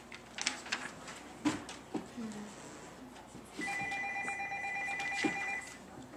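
Corded desk telephone ringing once with a steady electronic ring about two seconds long, starting a little past halfway. Before it come a few light taps and rustles.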